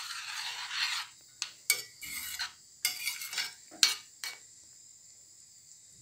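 Metal spoon stirring thick tomato sauce in a stainless steel pan: a wet scrape in the first second, then a handful of sharp clinks of the spoon against the pan.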